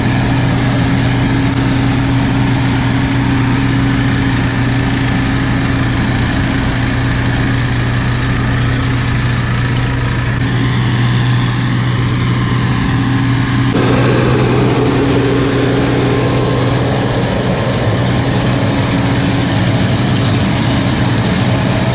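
Diesel farm tractor engines running steadily, a constant low hum close to the microphone. About 14 s in the sound shifts and grows busier as a John Deere tractor and its 568 round baler run close by.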